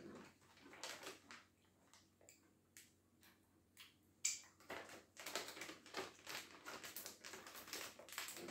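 Quiet crunching of a chocolate-dipped pretzel being chewed, with the crinkle of the plastic snack bag being handled. Scattered crackles at first, then denser crinkling from about halfway through.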